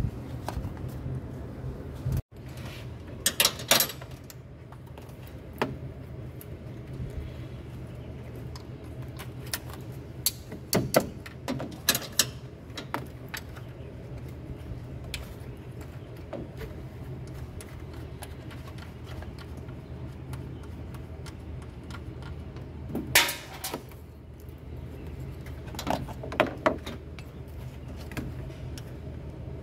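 Metal hand tools clinking and scraping as a small wrench works the mounting bolt of an engine's camshaft position sensor: scattered sharp clinks, loudest about 23 s in, over a steady low hum.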